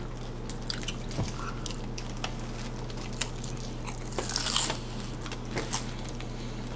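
Close-up biting and chewing of crunchy nacho-cheese taco shells: scattered small crackles, then one louder crunch about four and a half seconds in, over a steady low hum.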